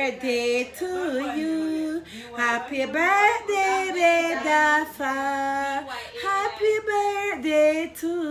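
A woman singing solo, unaccompanied, in long held notes that slide from one pitch to the next.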